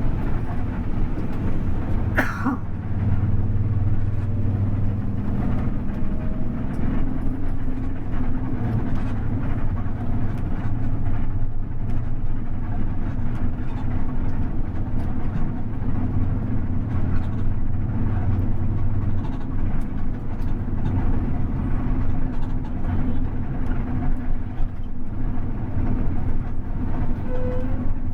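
Steady low rumble of an intercity bus under way, engine and road noise heard from inside the cabin. There is one short sharp high-pitched sound about two seconds in.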